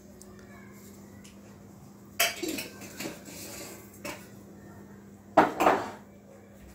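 Kitchen utensils and dishes clinking and knocking: a sharp clatter about two seconds in, two lighter knocks after it, and the loudest clatter near the end.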